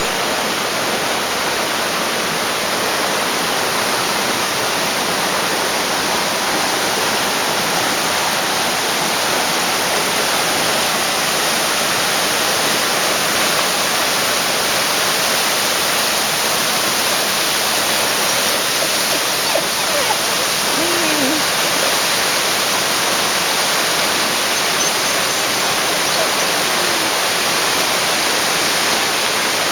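Waterfall: a steady, dense rush of falling and splashing water with no let-up.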